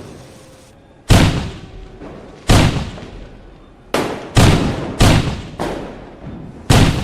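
Fireworks exploding: seven loud bangs at irregular intervals, each with a short fading rumble.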